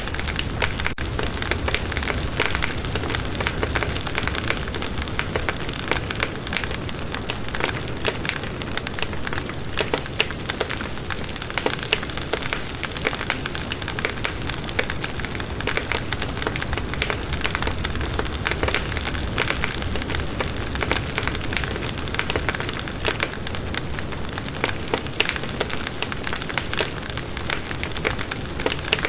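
Wood bonfire burning steadily, with a dense crackle of small pops over a low rumble.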